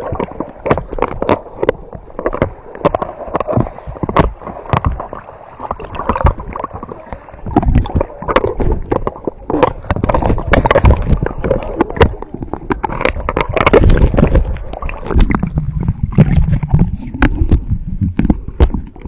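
Water sloshing and splashing around a camera bobbing at the surface, its microphone dipping in and out of the water, with muffled gurgling and many sharp splashy clicks.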